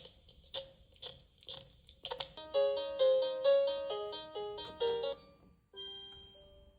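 Toy cash register's electronic sounds: short beeps about every half second as keys are pressed, then an electronic jingle of stepping notes lasting about three seconds, then one held beep near the end.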